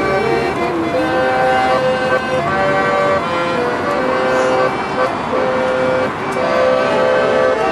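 Piano accordion playing a tune of held reedy notes over sustained chords.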